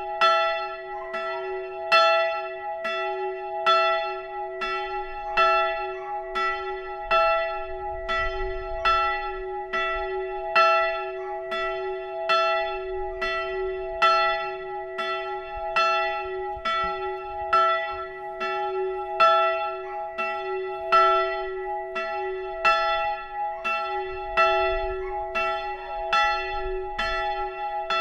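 A single swinging church bell ringing steadily, its clapper striking a little more than once a second, with louder and softer strokes alternating, and a long hum ringing on between strikes. This is the one-bell pre-ringing (Vorläuten) that calls to the service half an hour before it begins.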